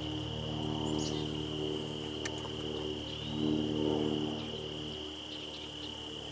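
Insects trilling steadily at a high pitch, with a low steady hum of several tones underneath that fades briefly near the end.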